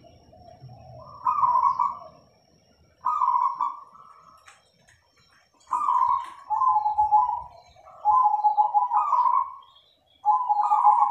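Zebra doves (perkutut) cooing: a run of short, stepped cooing phrases, one every one to three seconds.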